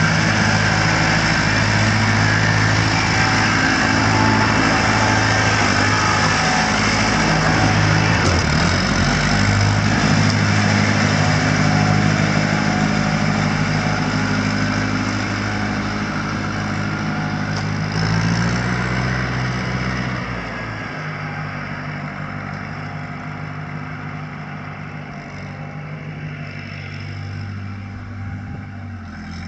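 Ford 901 Diesel Select-O-Speed tractor's four-cylinder diesel engine running as the tractor drives off. The engine note shifts about a quarter of the way in and again past halfway, then the sound fades as the tractor moves away.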